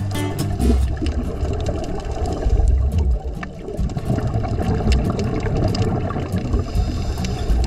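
Underwater ambience recorded through a camera's dive housing: a muffled low rushing of water that swells and fades unevenly, with faint scattered clicks throughout.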